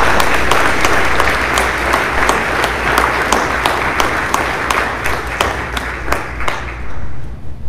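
Small audience applauding, with individual claps standing out, dying away about a second before the end, over a steady low hum.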